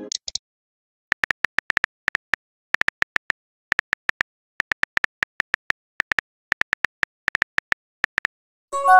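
Phone keyboard clicks, short sharp taps in quick irregular clusters as a text message is typed. Just before the end a short chime of a few steady tones begins, a message-sent alert.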